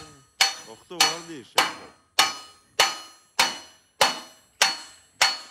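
Hand hammer beating a long copper sheet over a steel bar, a traditional coppersmith forming the metal. About nine blows come at an even pace, roughly one every 0.6 s, each a metallic strike with a short ringing tone that dies away before the next.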